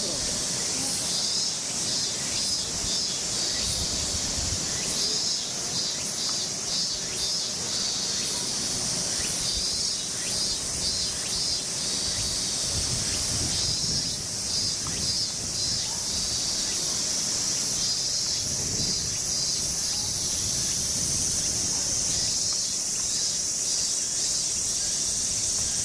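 Cicadas shrilling in a steady, high chorus with a fast pulsing texture.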